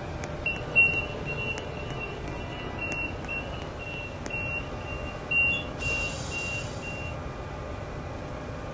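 Train door-closing warning beeping, short high beeps about two a second that stop about seven seconds in, over the steady low rumble of the train.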